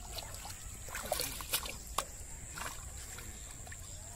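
Shallow muddy water splashing and sloshing as hands grope through mud for fish, with a few sharp splashes between about one and two seconds in.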